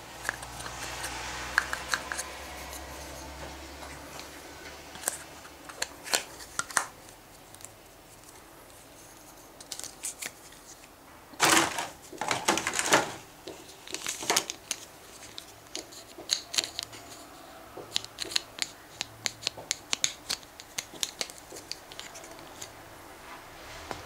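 Hard plastic Play-Doh tools being handled: scattered clicks and taps, a louder clatter of knocks and rustling about halfway through, and a run of quick light clicks in the last third.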